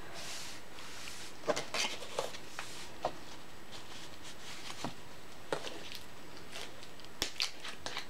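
Scattered faint clicks and short scrapes over a steady hiss, about seven small sounds spread across the stretch.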